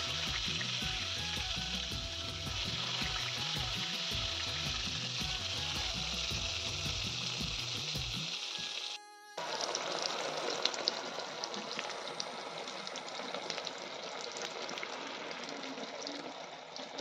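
Eggplant slices frying in hot oil in a black wok: a steady sizzle with crackling spits. Soft background music with a beat plays under the sizzle for the first half, then stops after a break about nine seconds in, leaving the sizzle alone.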